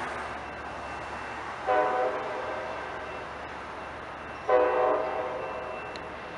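Train horn sounding two short blasts about three seconds apart, over a faint steady background hiss.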